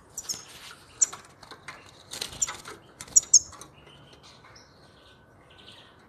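Caged European goldfinches giving short, very high chirps several times, the loudest two in quick succession about three seconds in, with bursts of wing fluttering as a bird moves about the cage.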